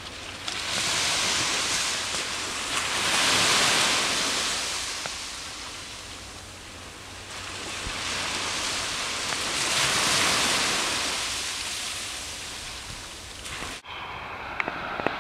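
Surf washing onto a beach: a steady rush of waves that swells twice, loudest about three and a half seconds in and again about ten seconds in.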